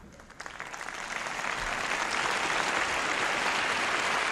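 Audience applauding, swelling over the first second or two and then holding steady.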